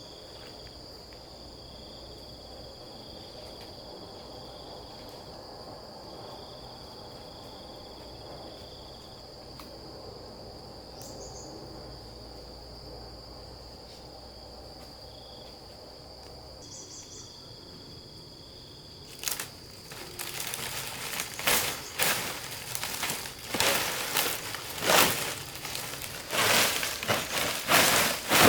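Insects calling steadily: one continuous high-pitched tone with a second, lower one cutting in and out. About two-thirds of the way in, loud irregular crunching and knocking sounds begin and go on to the end.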